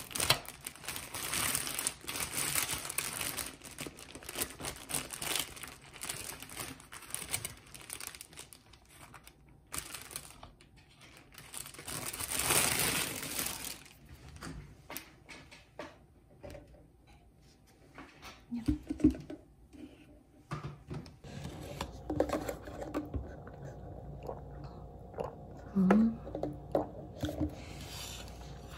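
A plastic bread bag crinkling and rustling as it is handled and opened, loudest in the first several seconds and again about halfway through. It is followed by quieter scattered eating sounds: chewing and small knocks.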